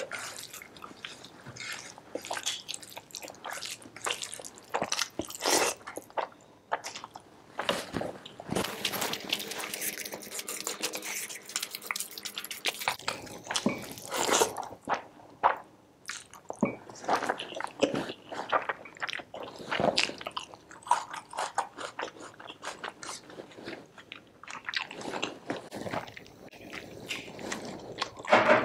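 Close-up sounds of a person eating rice mixed with chicken curry by hand: chewing large mouthfuls, with many irregular sharp mouth clicks, and fingers mixing the rice and curry on the plate.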